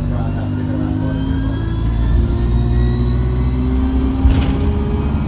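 Alexander Dennis Enviro200 bus's diesel engine pulling under acceleration, with a turbocharger whine slowly rising in pitch. A short sharp click about four seconds in.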